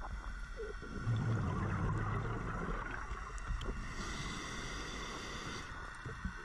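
Muffled underwater ambience heard through a diving camera's housing, with a louder low bubbling rumble from about one to three seconds in, like a scuba diver exhaling through a regulator, and a few faint clicks.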